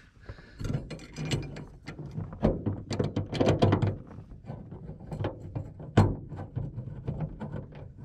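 Socket ratchet clicking in quick runs as a seat belt anchor bolt is driven into its mounting bracket, with one sharper click about six seconds in. The bolt is threading in stiffly, going in awful hard.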